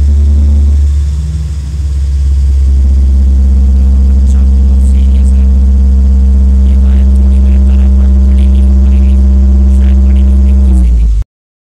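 Cattle ambulance truck's engine idling: a loud, steady low hum that cuts off suddenly near the end.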